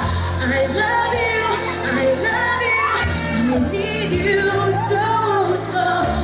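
A pop song performed live: a solo singer's voice through a microphone and PA speakers over a backing track, the melody gliding and sustained above a steady bass line.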